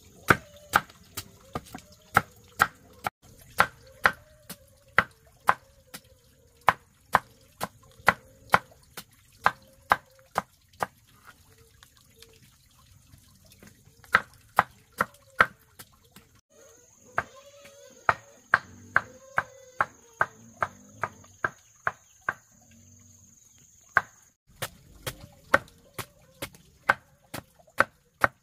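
Knife chopping on a cutting board in a steady rhythm of about two cuts a second, stopping for a few seconds twice and then starting again. A steady high whine sounds faintly in the background and is louder for several seconds in the second half.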